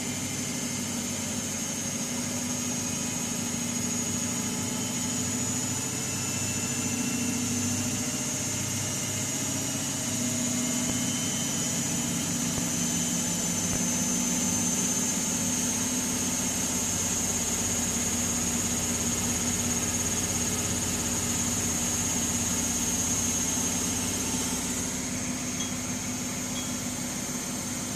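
Miele Gala W961 washing machine spinning, a steady drone with a high motor whine that drifts slightly in pitch. It drops a little in level about 25 seconds in.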